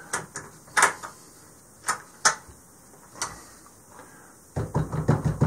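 A handful of separate sharp clicks and knocks of hard plastic and metal parts being handled: the 3D-printed vise block and the pistol. Near the end, background music with a steady low beat comes in.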